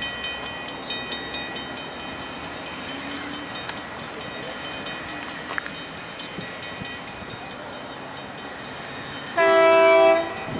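Level-crossing warning bells ringing in a steady series of strikes, then about nine seconds in a diesel locomotive horn sounds one chord for about a second, the loudest sound, as an approaching freight train warns the crossing.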